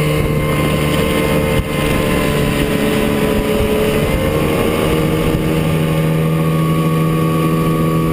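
1967 Chrysler 9.2 hp two-stroke outboard motor running at speed under way, a steady drone whose pitch sags slightly for a few seconds and then settles back.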